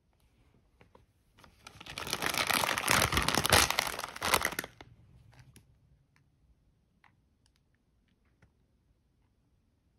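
Plastic bag of a chopped salad kit crinkling for about three seconds as it is handled and turned over, followed by a few faint clicks.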